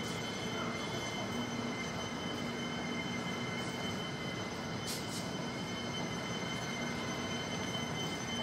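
Electric metro train standing at an underground platform, with its steady hum and several high, steady whining tones that do not change.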